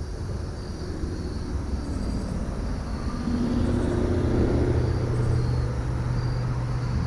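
Low rumble of a motor vehicle that swells about three and a half seconds in and then holds steady, with insects chirping in short, evenly repeated pulses behind it.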